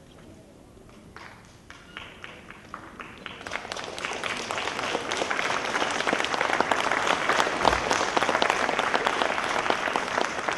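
Audience applause in a hall: a few scattered claps at first, building over about three seconds into full, steady clapping from the whole crowd.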